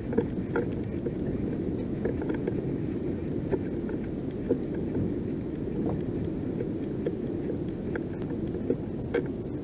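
Steady low rumble of wind and water around a kayak at sea, with a few scattered faint clicks.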